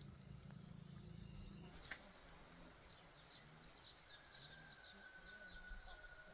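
Faint outdoor ambience with a bird giving a quick run of short, high, falling chirps, about three or four a second, beginning about three seconds in. A thin steady high tone sits under the chirps, and a low hum stops with a click about two seconds in.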